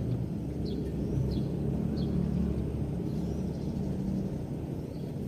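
Steady low rumble of outdoor ambience, with a bird giving short, high, falling chirps about every two-thirds of a second through the first two seconds.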